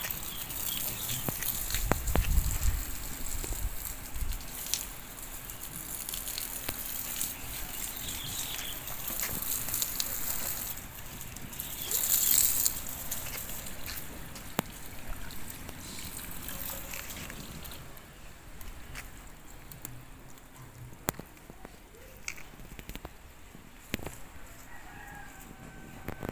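Water running from a garden hose and splashing onto the soil, a steady hiss that fades about two-thirds of the way through. There is a low thump about 2 seconds in.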